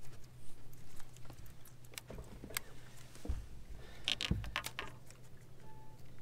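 Small clicks and metallic rattles of hooks and lure as a just-landed bass is unhooked by hand, with two dull thumps about three and four seconds in, over a low steady hum.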